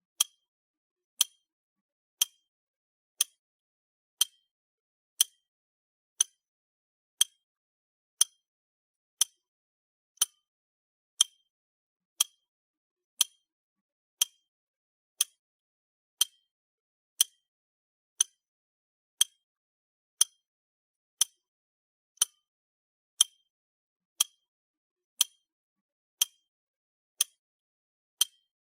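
Clock ticking: one short, sharp tick every second, steady and even throughout, with nothing between the ticks.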